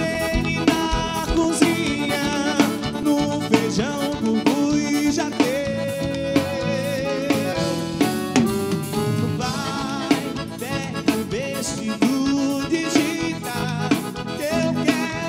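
Live forró band playing over a steady drum-kit beat, with electric bass, accordion and a man singing into a microphone.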